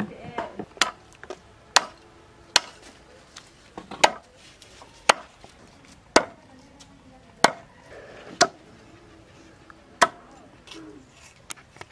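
Cleaver chopping raw chicken on a wooden block: sharp single chops, about one a second.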